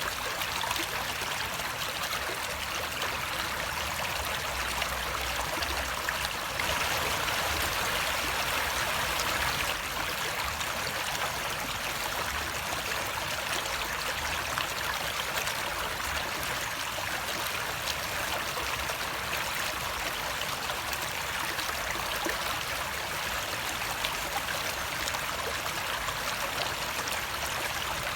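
Flowing water running steadily, the rushing and trickling of a stream, a little louder for a few seconds about a quarter of the way in.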